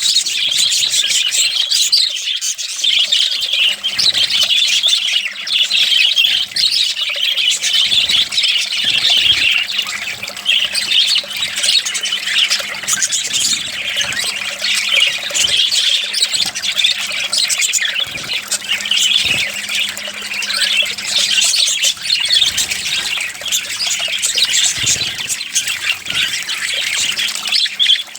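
Budgies chattering and squawking continuously, with water splashing as they bathe.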